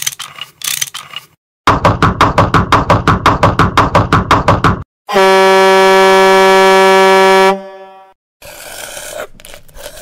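Ratchet clicking, first in a few scattered clicks and then in a fast even run of about six clicks a second. Then one long, loud, steady truck air-horn blast lasting about two and a half seconds, followed by a rough, scratchy noise near the end.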